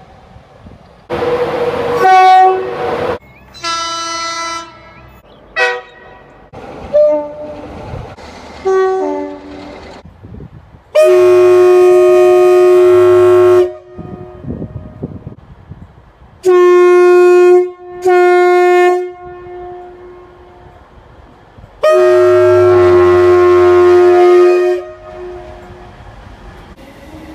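Train horns sounding in a run of separate recordings, each blast a steady chord of several tones. First come several short toots at different pitches, then a long blast of nearly three seconds, a quick pair of blasts, and another long blast of about three seconds.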